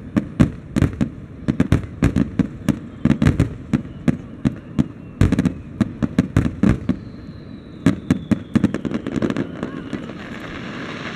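Fireworks display: a rapid run of aerial shell bursts, several sharp bangs a second, with one heavy bang about halfway through. Near the end the bangs thin out and a steadier hiss rises.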